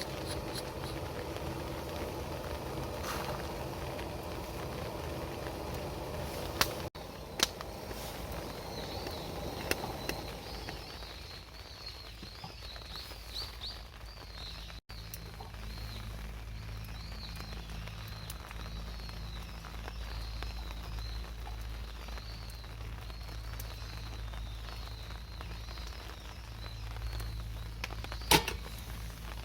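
Small birds chirping over and over, with a few sharp clicks. A low steady hum comes in about halfway through.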